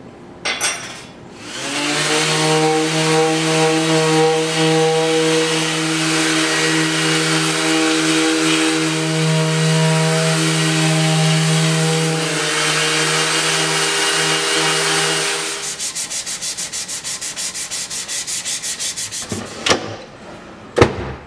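Orbital sander with a dust-extractor hose sanding maple veneer cabinet wood. It starts up about a second and a half in and runs steadily with a humming motor tone, then pulses rapidly for a few seconds before stopping. A couple of sharp knocks follow near the end.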